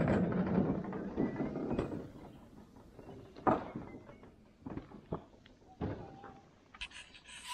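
Scattered knocks and clunks: a loud clunk with about a second of rustling after it, then single sharp knocks every second or so.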